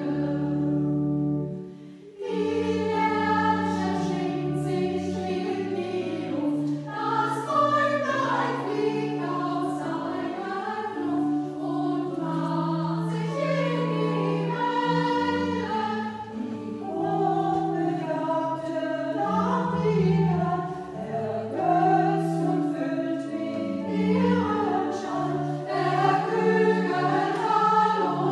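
Church choir singing a sacred piece in several voices, with held notes that shift in pitch. There is a short break about two seconds in, and the choir then carries on.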